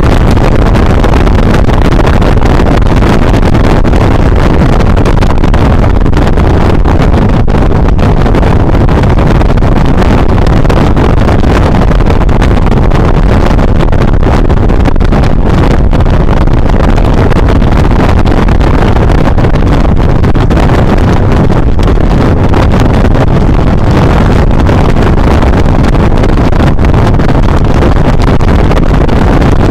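Steady, loud wind rush over a helmet-mounted camera's microphone on a motorcycle at highway speed, with the motorcycle's engine running underneath.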